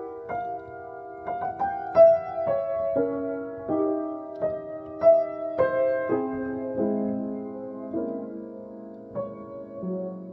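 Piano played with both hands: a slow, gentle melody over chords, the notes ringing on into each other. The playing slows and grows quieter toward the end, settling on a held low note.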